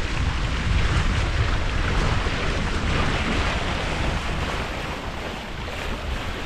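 Wind buffeting the microphone as a low rumble over a steady rush and hiss of water along the hull of a sailing yacht under way at about 5 knots.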